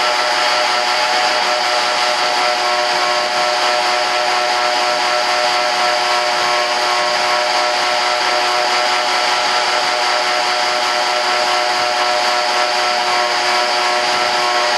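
Shop vacuum running steadily, a constant motor whine over airflow rush, sucking up fiberglass dust and scraps.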